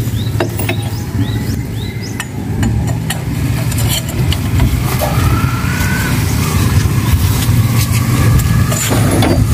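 An engine running steadily, with sharp metallic clinks from a lug wrench and pipe extension working the wheel nuts of a heavily loaded truck.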